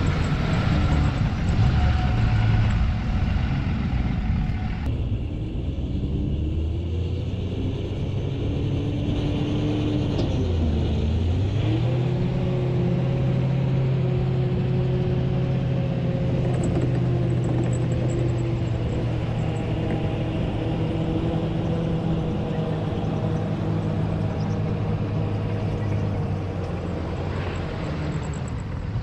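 Vehicle engines running steadily as a pickup truck is towed out of soft sand by a tracked carrier. About ten seconds in, the engine note dips and then settles at a higher, steady pitch.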